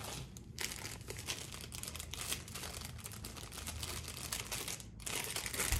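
Plastic packaging crinkling and rustling continuously as hands rummage through bubble wrap and handle a small item in a clear plastic bag, with a short lull near the end before a louder rustle.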